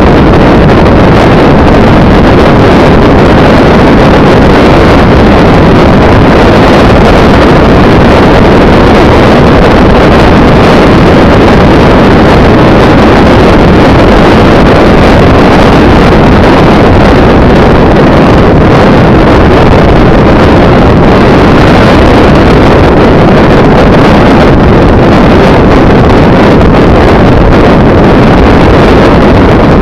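Steady wind buffeting and road noise with an engine drone underneath, picked up by the microphone of a camera on a moving vehicle. It is loud enough to sit at full scale throughout.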